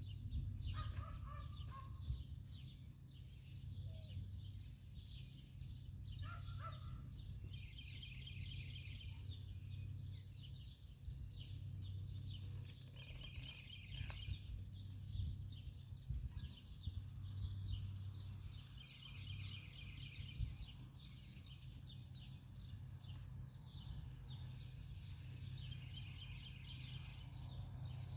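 A bird sings a short, rapid trilled song four times, about every six seconds, over a steady low rumble.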